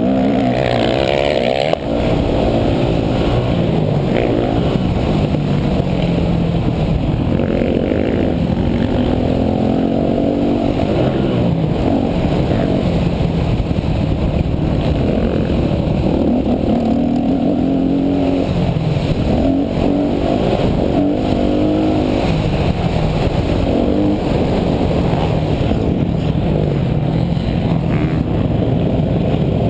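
Yamaha YZ250F four-stroke single-cylinder dirt bike engine being ridden hard, its pitch rising and falling over and over as the throttle is opened and closed through the gears.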